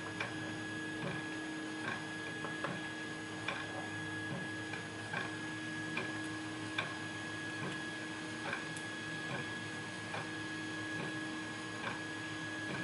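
Faint, irregular small clicks of tweezers picking lock pins and springs out of a pin-tumbler lock's housing, over a steady electrical hum.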